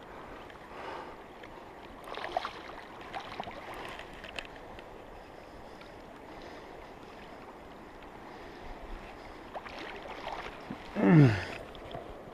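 Steady rushing of a flowing river. About eleven seconds in, a person's voice gives one short exclamation that falls sharply in pitch.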